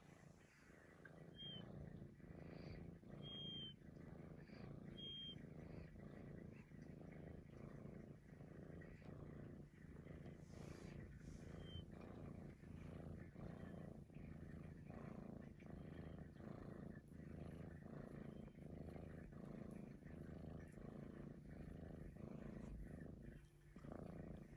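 Maine Coon cat purring softly and steadily, the purr dipping briefly between breaths. A short, high, slightly falling whistle sounds four times on its breaths, three in the first five seconds and once more near the middle.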